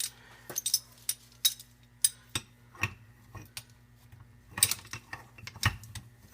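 Irregular metallic clinks, taps and a few heavier knocks of a steel three-jaw puller being handled and fitted onto a part of a 70cc quad engine. A faint steady hum runs underneath.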